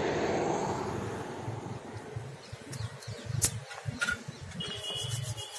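Steady outdoor traffic noise, then a wood fire burning in a metal can with a low fluttering and a few sharp crackles.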